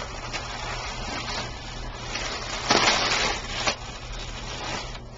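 Blue tissue-paper wrapping rustling and crinkling as it is pulled open by hand, loudest for about a second around three seconds in.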